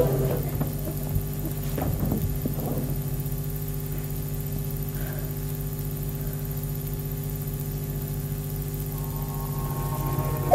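A steady low hum with even overtones and a few faint knocks about two seconds in.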